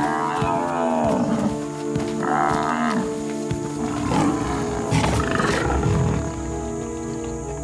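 African buffalo bellowing in distress, two drawn-out falling moans, while lionesses bring it down, then a rougher, noisier stretch from about four to six seconds in. Sustained background music plays under it all.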